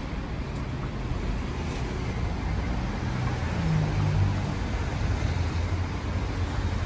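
City street traffic: car engines running and passing as a low rumble that swells about three to four seconds in.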